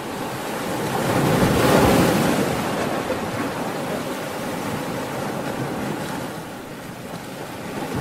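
Rough sea: a steady rush of churning waves and surf, swelling to a peak about two seconds in.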